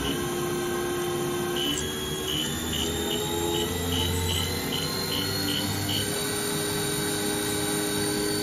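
The 20 hp vector-drive spindle motor of a Haas VF-0E mill runs with steady tones that step in pitch as the spindle speed is changed. A faint whine rises slowly. The spindle sounds rough in certain RPM ranges, which the owner puts down to a badly loose spindle encoder belt. A run of about a dozen short, evenly spaced high beeps sounds from about a second and a half in to about six seconds in.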